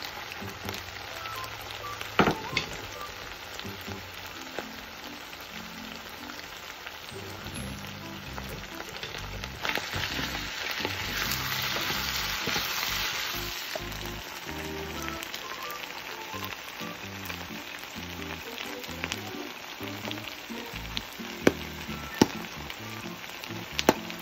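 Chopped pork sisig sizzling as it fries in a pan, swelling to a louder hiss for a few seconds around the middle while it is stirred with a wooden spatula. A few sharp knocks sound near the start and again near the end.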